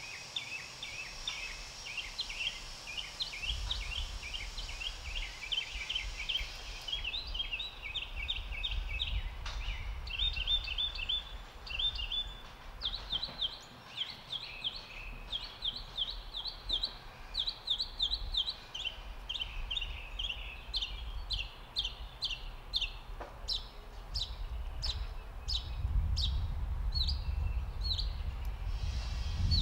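A long, steady series of short, high chirps, several a second, from a small animal, with a low rumble underneath that grows louder near the end.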